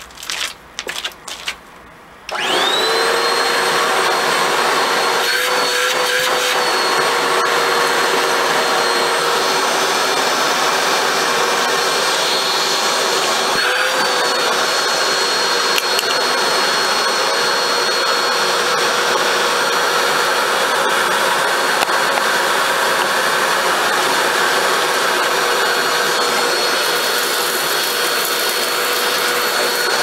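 Plastic parts clattering as the filter is fitted into the top of a bagless upright vacuum's canister, then the vacuum switched on about two seconds in: its motor spins up with a quickly rising whine and runs steadily, with a couple of small knocks along the way.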